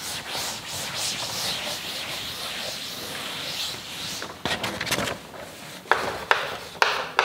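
A duster wiping a chalkboard, a continuous swishing rub for about four seconds. Then a few sharp taps and short scrapes of chalk on the board as writing begins.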